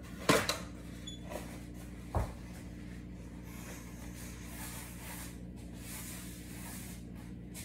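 Two sharp knocks about two seconds apart, with a fainter one between, as things are handled in a kitchen, over a steady low hum.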